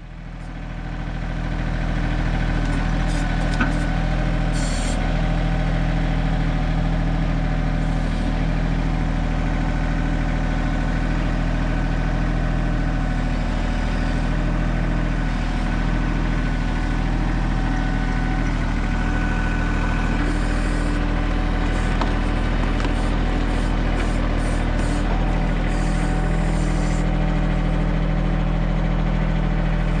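Mahindra 1626 compact tractor's diesel engine running steadily at an even speed, fading in over the first couple of seconds.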